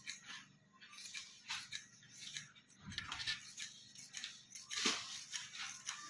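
Tailoring scissors snipping through folded cloth in a steady run of cuts, about two a second, loudest near the end.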